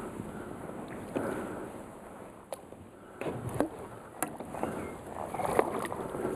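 Water sloshing and splashing against a small boat on the river, with a few light knocks and clicks.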